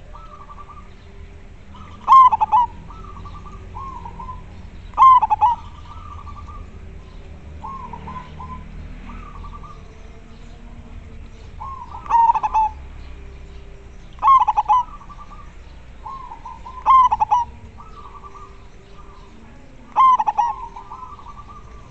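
Zebra dove (perkutut) cooing: six loud phrases of quick staccato coo notes a few seconds apart, each opening with a strong note, with softer coo phrases in between.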